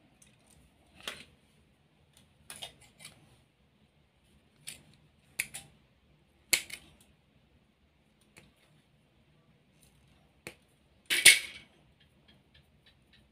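Wires being handled and worked by hand inside an open battery charger's metal case: scattered short clicks and rustles, and one louder, longer crunch about eleven seconds in. A faint, quick, even ticking starts near the end.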